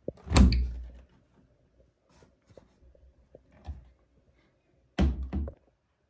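Front-loading laundry appliance doors handled: a sharp click and a heavy thunk just after the start, light handling noises, then a double thunk about five seconds in.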